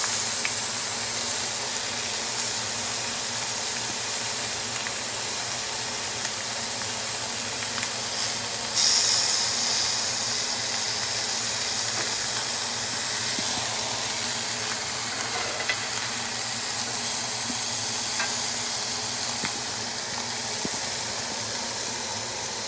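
New York strip steaks sizzling steadily in a hot ridged grill pan, the sizzle stepping up louder about nine seconds in. A few faint clicks come through it.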